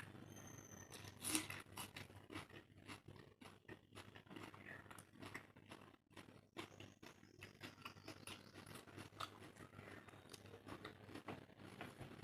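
Close-up eating sounds: a person chewing a mouthful of curry and rice, with frequent small wet clicks and smacks and a sharper crunch about a second in.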